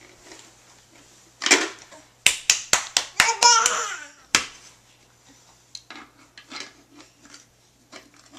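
Several quick claps and a baby's happy squealing laugh, among the knocks and clatter of plastic shape-sorter blocks.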